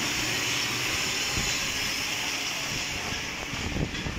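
Paris Métro train running out of the station along the platform: a steady rushing hiss that fades near the end as the train clears, with a few short knocks just before the end.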